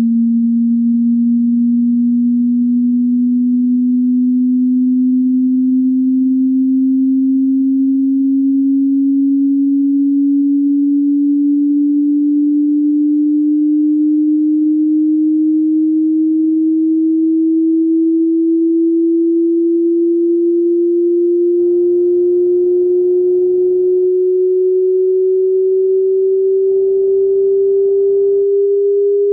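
A pure sine test tone gliding slowly and evenly upward in pitch, from a low hum to a somewhat higher one: a frequency sweep from a hearing test.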